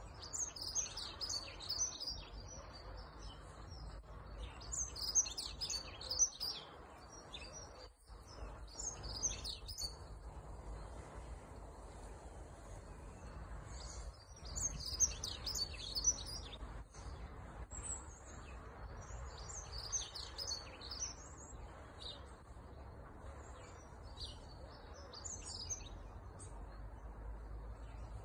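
Dunnock singing: about six short, fast, high warbling phrases, each a second or two long, separated by pauses of a few seconds, over a low steady background rumble.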